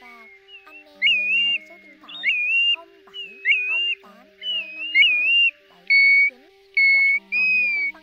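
Pacific golden plovers calling: clear whistled notes about once a second, many with a quick rise and fall in pitch, some held flat, over faint background music.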